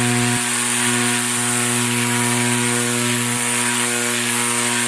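Cordless electric string trimmer running at full speed off the ground: a steady motor hum with the hiss of the spinning head over it.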